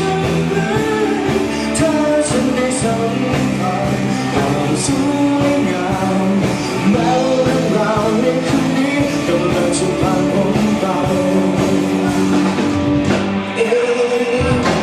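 Rock-style pop song: a singing voice over a band with guitar.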